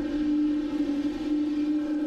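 A steady, low, horn-like tone held at one pitch without a break.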